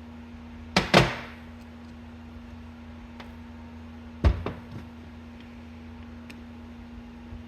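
Hard clacks of parts and tools being handled and set down on a workbench during a carburetor teardown: two sharp knocks close together about a second in, and another about four seconds in followed by a short rattle, with a few light clicks between.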